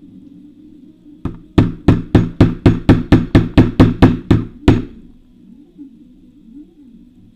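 A hammer tapping a cut-down nail used as a punch to drive out the pin holding the clamp on a Shimano BL-M7100 brake lever body. One tap, then a quick run of about a dozen even, sharp blows, about four a second, which stops a little past the middle.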